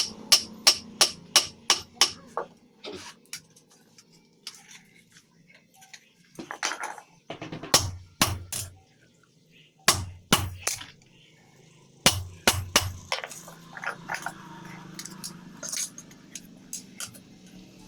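Hand hammer striking hot iron on an anvil: a steady run of about three ringing blows a second at first, then short groups of two to four blows with pauses between.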